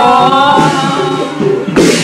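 Singing: a held sung note fades out in the first second, then a single sharp knock comes near the end.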